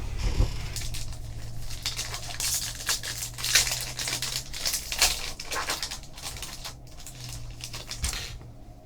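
Crinkling and tearing of packaging as a box of trading cards is opened and handled, in a run of short crackles that thins out near the end.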